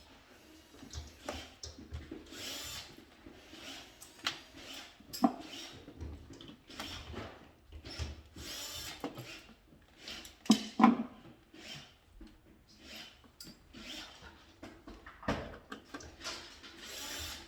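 Irregular handling noises from hands-on work with tools and parts: scattered clicks, short scrapes and rustles, with a few sharper knocks, the loudest about five, eleven and fifteen seconds in.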